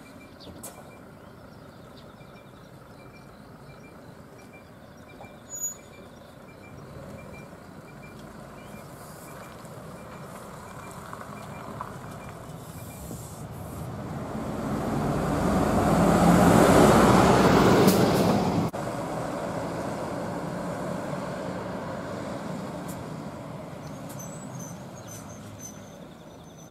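Diesel route bus pulling away from the stop and driving past close by. Its engine grows louder as it approaches, is loudest as it goes by, drops suddenly just after, then fades as it drives off down the road.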